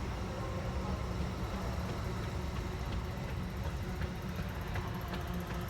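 Steady low rumble of passing vehicles, with a few faint clicks in the second half.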